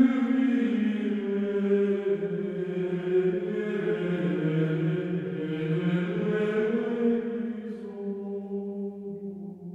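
Slow vocal chant with long held, slowly shifting notes, fading out near the end.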